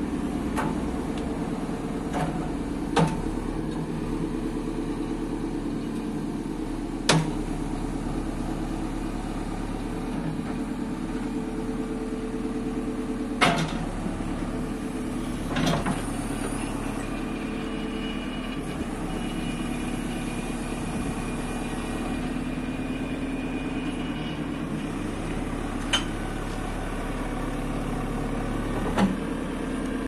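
JCB 3CX backhoe loader's diesel engine running steadily while the backhoe arm is worked, with about six sharp clanks scattered through.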